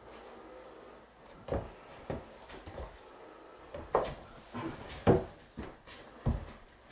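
A few dull wooden knocks and thuds of boots and knees on a loose chipboard floor panel laid across the joists, the loudest about four and five seconds in.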